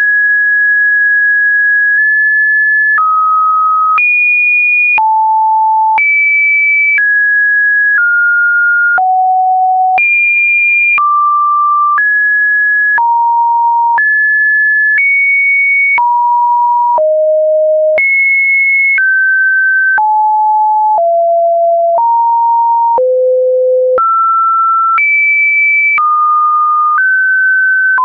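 Computer-generated pure sine test tone, loud and steady, jumping to a new pitch once a second in a random order between mid and high pitches, with a faint click at each change.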